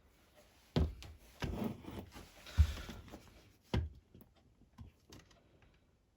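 Handling noise: a sharp knock, a stretch of rubbing and scraping with a heavy thump about two and a half seconds in, another knock near four seconds, then a few faint clicks. No alarm sounds.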